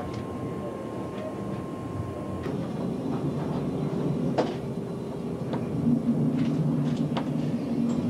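ICE 1 (DB Class 401) high-speed train heard from inside a passenger car while moving: a steady low running rumble with a few sharp clicks. It grows a little louder after about three seconds, and a low hum comes in near the end.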